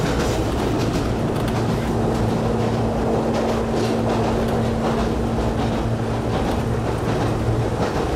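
Cabin sound of a former Keio 5000 series electric railcar running along the line: a steady rumble of wheels on rail under a constant low hum, with scattered faint clicks.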